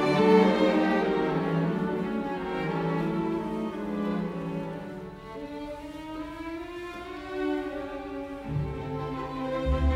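Background music of slow, held string notes, with a deep low note coming in near the end.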